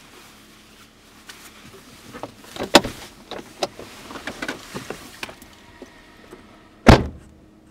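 A run of small clicks and knocks, one of them sharp, then a car door shutting with a single heavy thud near the end.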